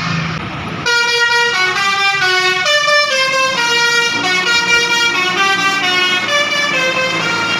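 Basuri telolet bus air horn playing a melody of stepped, held notes, starting suddenly about a second in over the noise of a running vehicle.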